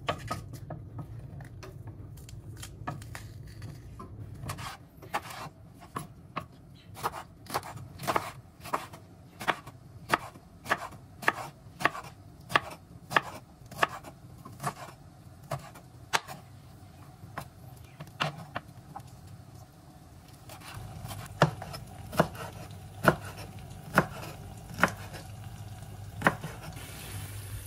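Knife chopping peppers on a cutting board: a long run of evenly spaced knocks, about one and a half a second, growing sparser near the end.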